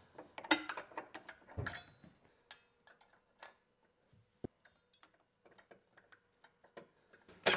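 Clicks and knocks of a 12V car battery's hold-down bracket being set back in place and handled: a loud clack about half a second in, a duller knock near two seconds, a few light ticks, a sharp click about four and a half seconds in, and a burst of clatter at the very end.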